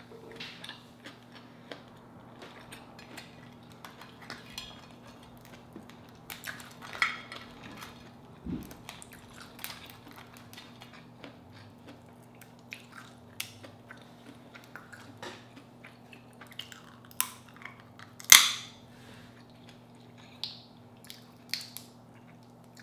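Boiled crawfish shell cracked and peeled by hand, giving scattered sharp cracks and small clicks with some wet eating sounds; one loud crack comes about three-quarters of the way through.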